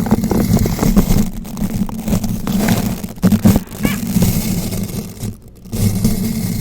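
Bristle brush rotated against a bare microphone: continuous scratching with dense crackles and a low rumble from the bristles rubbing the mic. It pauses briefly about five and a half seconds in.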